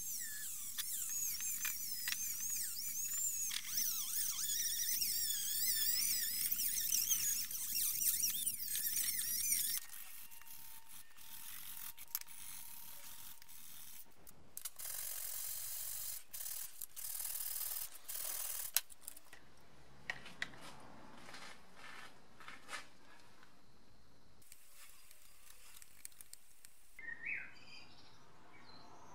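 Rotary tool with a steel wire bit whining as it cleans the steel output flanges of a BMW E30 limited-slip differential, its pitch wavering under load; it stops about ten seconds in. Later a small hand wire brush scrubs shims and washers, followed by a few light clicks of small parts.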